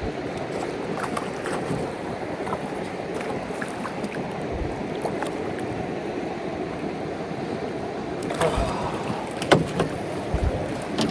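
Steady wash of river water and wind around a small boat, with low gusts of wind buffeting the microphone now and then and a few sharp knocks near the end.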